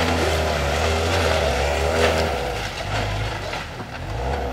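Off-road buggy's engine revving hard through a muddy race track, its pitch rising and falling as the throttle changes, easing off a little around four seconds in.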